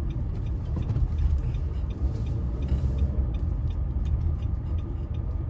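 Car cabin noise while driving slowly: a steady low rumble from engine and road, with a faint regular ticking about two to three times a second.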